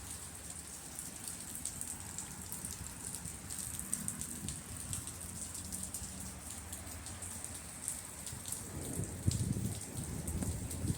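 Heavy rain falling during a thunderstorm, a steady hiss with many small drop ticks, and a brief low rumble about nine seconds in.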